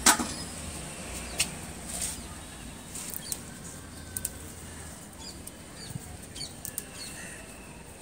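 Hands picking green chillies off chilli plants, with leaves rustling and stems snapping in scattered small clicks. A sharp clatter at the very start as chillies are dropped onto a steel plate.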